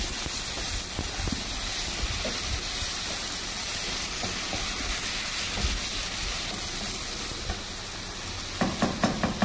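Sliced okra and dried anchovies sizzling in a frying pan with a little water just added, while a wooden spatula stirs them, scraping the pan. A few sharper knocks come near the end.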